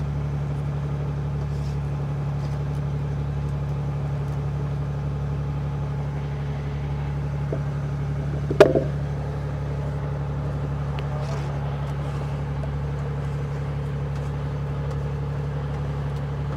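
Fishing boat's engine running steadily with a low, even hum. A single sharp knock comes about eight and a half seconds in.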